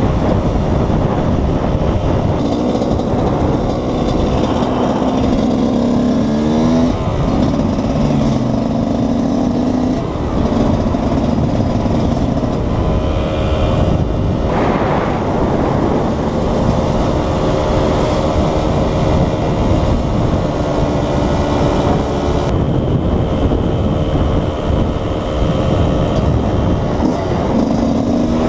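KTM 125 EXC's single-cylinder two-stroke engine running under way, its pitch rising and falling as the throttle and gears change.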